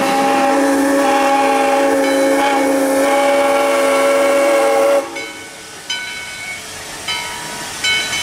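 Steam locomotive chime whistle held for about five seconds, several notes sounding together, then cut off sharply. Several short, higher whistle toots follow over a steam hiss.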